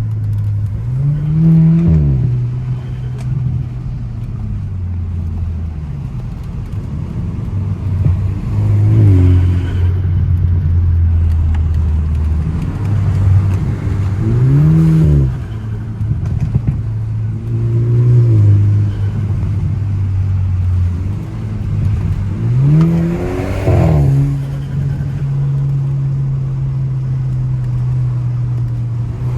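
Car engine under way on a winding road. It holds a steady note between four sharp rev rises, each falling back as the driver accelerates and lets off.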